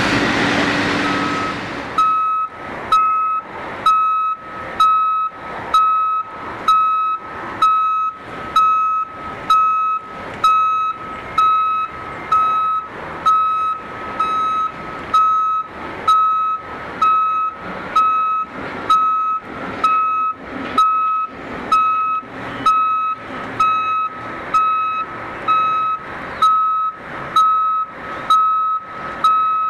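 Vehicle back-up alarm beeping at about one beep a second, one steady high tone each time, over a heavy diesel engine running in the background. A louder engine noise fades out just before the beeping begins, about two seconds in.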